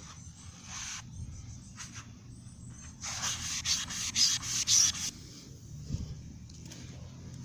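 Melamine foam sponge (Mr. Clean Magic Eraser) scrubbing a plastic car headlight lens in quick back-and-forth strokes, about four or five a second, loudest in a two-second spell near the middle.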